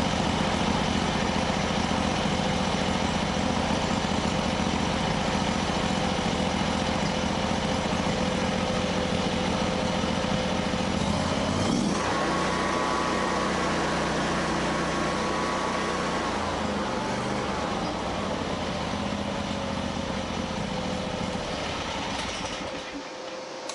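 Predator 670 V-twin gasoline engine running steadily on a test stand during its first test run. About halfway through, its running note shifts. Near the end the engine dies away to a stop.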